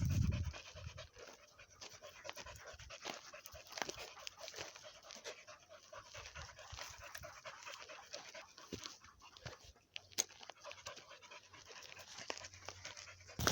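Dogs panting after a run, with light crackling from steps through dry brush.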